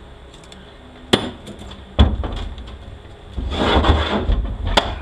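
Parts of a 46RE transmission's overdrive section being handled on the bench: a few light clicks, a heavy knock about two seconds in, then scraping and rubbing as the overdrive housing is lifted and turned, ending in a sharp clack.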